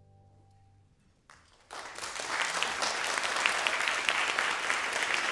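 An orchestra's final held chord dies away during the first second, and after a brief hush an audience bursts into applause that continues steadily.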